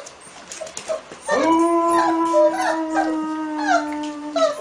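A dog howls one long, steady howl, starting about a second in and held for about three seconds.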